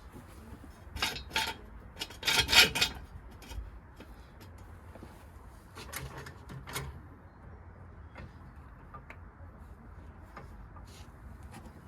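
Hand tools clinking and scraping on metal in short clusters, the loudest a little over two seconds in and another about six seconds in, over a low steady hum.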